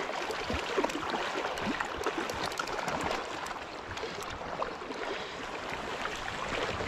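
River current flowing and gurgling steadily, with many small splashes.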